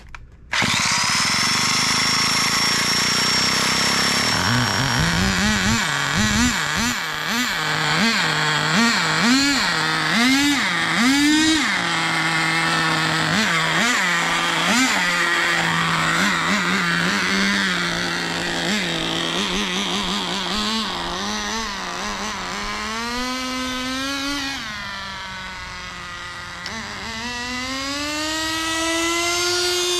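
Nitro RC car's small two-stroke glow engine, fitted with a miniature turbo, firing up and running, with a high steady whine over it for the first few seconds. It is revved in quick blips about once a second, settles to an idle, and gets two longer revs near the end. It sounds boggy and not high-pitched; the owner suspects it is running too rich.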